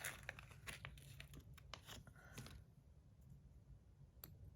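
Faint handling noises of small fidget slider parts and springs being sorted by hand: a run of light clicks and rustles that dies away after about two and a half seconds, then one more click near the end.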